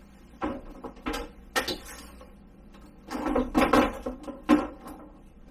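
Hard plastic food dehydrator base being handled and set down on gas stove grates: separate knocks at about half a second, one second and one and a half seconds, a louder clatter of several knocks around three to four seconds in, and one more knock near the end.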